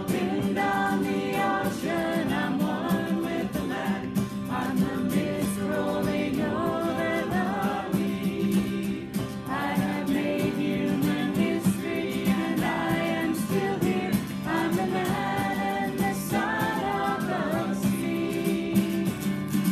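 Live folk song: an acoustic guitar strummed steadily while several voices sing together.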